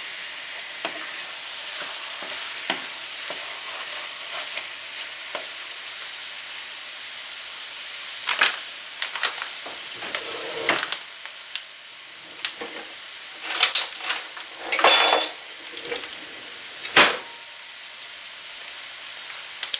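Butter sizzling in a hot pot of mashed sweet potatoes on the stovetop, a steady hiss as it melts. A few sharp clicks and clatters come in the second half.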